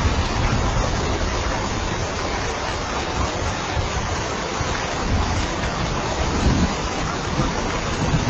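Steady rainfall: a dense, even hiss of falling rain with a low rumble underneath that swells and fades.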